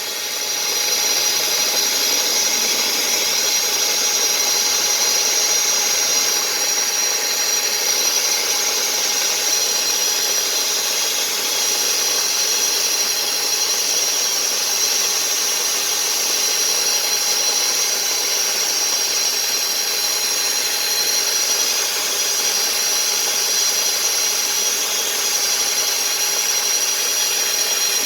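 Drill spinning a Clog Dawg chain-knocker head inside a drain pipe, its chains grinding tree roots out of the line. The drill runs steadily with a high whine and a constant rasping grind.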